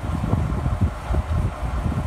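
Wind buffeting the microphone in irregular low gusts over the low rumble of a stationary diesel locomotive idling.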